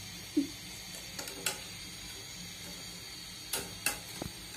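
A metal flower-pitha mould clinking against a steel karai as it is dipped and lifted from the oil: a few sharp clicks, two about a second in and two near the end. Under them is a steady low hiss of oil frying the pitha.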